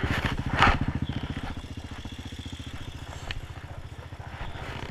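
Honda TRX250EX sport quad's single-cylinder four-stroke engine idling with a steady, even pulse. There is a loud clunk about half a second in.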